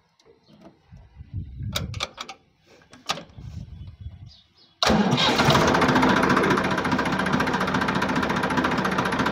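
Massey Ferguson 241 tractor's three-cylinder diesel engine starting abruptly about halfway through, then running steadily. Before it catches there are a few scattered clicks and light knocks.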